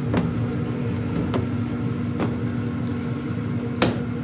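A steady machine hum with a constant low tone, under a few light clicks as print tongs knock against a darkroom tray while the print is moved around in selenium toner. The sharpest click comes near the end.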